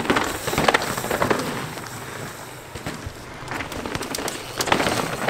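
Downhill mountain bike going over loose, rocky dirt: tyres crunching on gravel and the bike rattling, in two bursts, one at the start and one from about three and a half seconds in.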